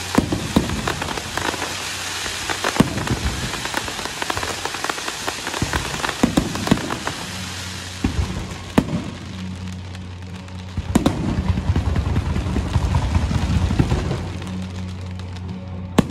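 Aerial fireworks show: a dense crackle of glittering shells with sharp bangs every few seconds. The crackle thins out in the second half.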